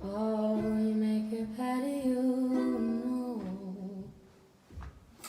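Final held note of a pop song: a singer's voice sustains one long note over plucked strings for about three and a half seconds, then fades out. Two short faint clicks follow near the end.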